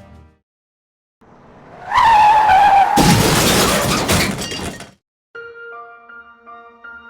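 A screeching skid, with a falling squeal, runs into a loud crash with shattering and breaking noise about three seconds in. It sounds like a car-crash sound effect. Soft music with sustained notes starts near the end.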